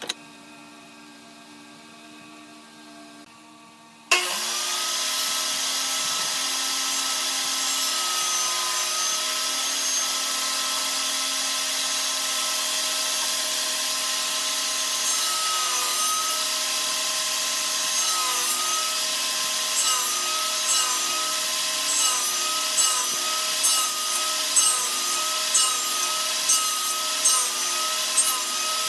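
An electric woodworking power tool switches on abruptly about four seconds in and runs steadily with a motor whine. In the second half its pitch dips again and again with short louder surges as it bites into the wood under load.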